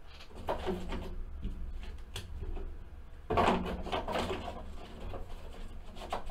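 Rustling and knocking of things being handled, with a louder scraping clatter a little over three seconds in, over a low steady hum.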